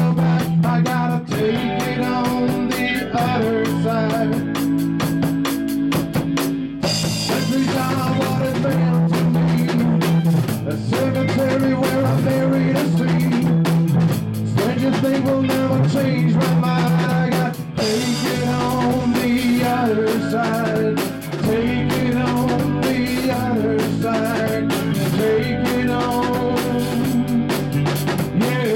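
Rock music with a drum kit keeping a steady beat under guitar and held low notes.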